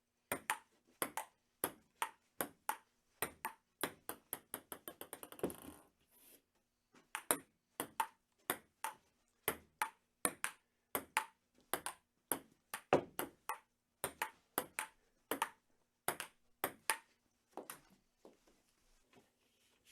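Table tennis rally: a ping-pong ball clicking back and forth off paddles and the table at a steady pace of about two hits a second. Partway through, the clicks come quicker and quicker as a ball bounces down to rest. Then the rally picks up again, turning fainter and sparser near the end.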